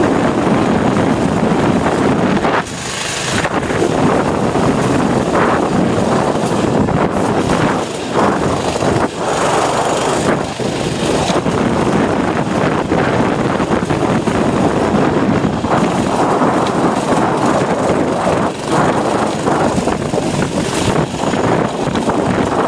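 A mini bike's small engine running while riding, mixed with heavy wind noise rushing over the helmet-mounted microphone. The level dips briefly a few times, most clearly about three seconds in.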